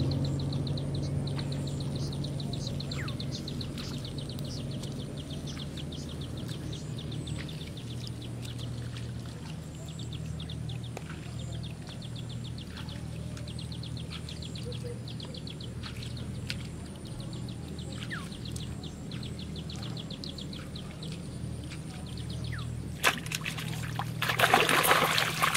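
Steady low motor hum and rapid high ticking chirps over quiet canal-side ambience. Near the end there is loud splashing as a hooked fish is hauled out of the canal water on a hand-pulled line.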